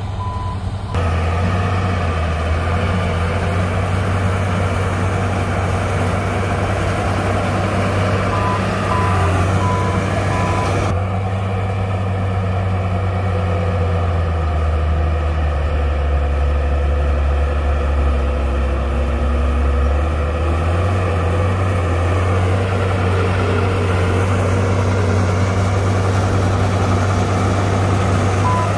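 Heavy diesel earthmoving machine running, its engine note sinking lower for several seconds past the middle and then coming back up. A reversing alarm beeps a few times about a third of the way in and again at the very end.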